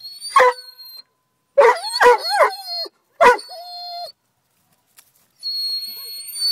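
Ridgeback dog giving sharp yelping barks, three in quick succession about a second and a half in, each with a bending howl-like pitch. Another bark trails into a held whine, and a long high-pitched whine comes near the end. The dog is worked up and restless.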